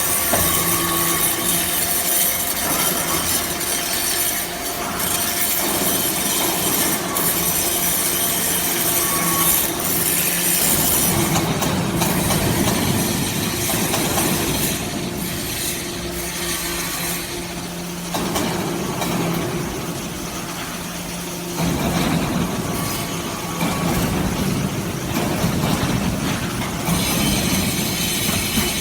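Hydraulic metal-chip briquetting press running: a steady hum under a rough, scraping hiss that shifts in strength every few seconds.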